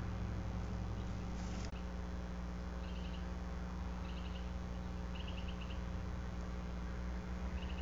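Steady low electrical hum under outdoor background hiss, with a faint, short, high insect-like trill of a few quick pulses repeating about five times. A brief hiss about a second and a half in cuts off suddenly.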